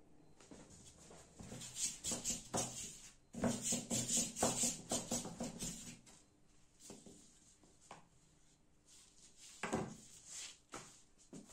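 Long, thin wooden rolling pin (oklava) rolling and knocking against a floured table as yufka dough is rolled out thin. A rapid run of strokes comes from about two to six seconds in, then a few scattered soft knocks as the dough sheet is lifted and turned.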